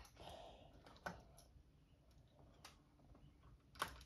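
A few faint, separate clicks of small plastic Lego pieces being handled and pressed onto a building plate, the loudest near the end.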